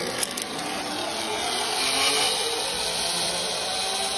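Zip-line trolley pulley running along the steel cable as a rider sets off: a few clicks at the launch, then a steady whirring hiss that grows loudest about two seconds in, with a faint whine coming in near the end.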